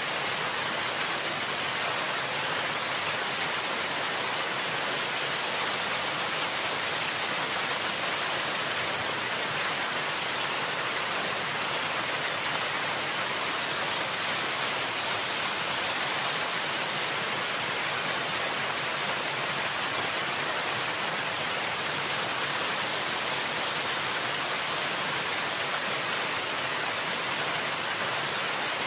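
Steady rushing or falling water: an even, unbroken hiss, strongest in the high range, with no separate drops or splashes standing out.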